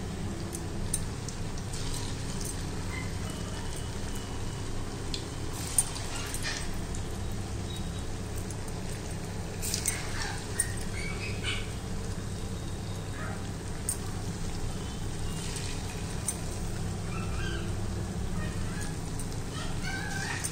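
Chhena patties deep-frying in hot oil in a kadhai on a low flame: a steady sizzle with scattered small pops and crackles.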